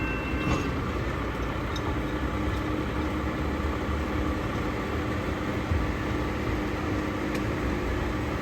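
Hi-rail truck engine idling, a steady low rumble with a faint steady hum over it.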